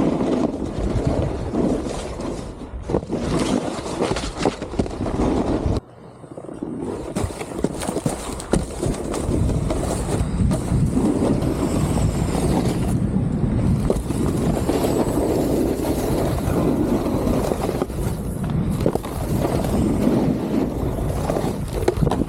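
Snowboard sliding and carving over packed snow, a continuous scraping rush of the base and edges with wind on the microphone. It drops away sharply for about a second around six seconds in, then builds back.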